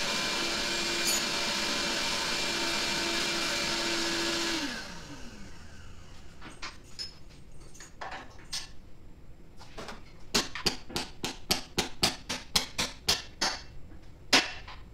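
Shop vacuum running steadily, then switched off about four and a half seconds in and winding down with a falling hum. After it comes a series of sharp taps, quickening to about three a second, with one louder tap near the end.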